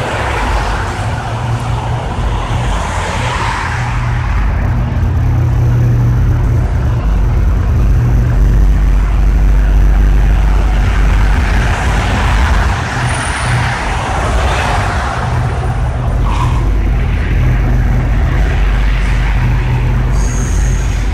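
Double-stack intermodal freight train rolling over a steel girder bridge: a steady, heavy low rumble, with cars passing on the road underneath.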